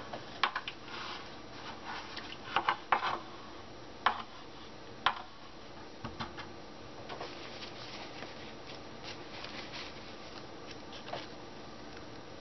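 Scattered light clicks and taps of craft supplies being handled on a tabletop, with soft rustling in between. Most of the clicks come in the first half, and there is a single tap near the end.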